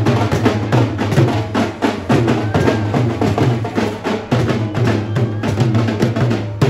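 Nashik dhol-tasha drums playing a fast, dense rhythm of sharp strikes over a steady low drum boom.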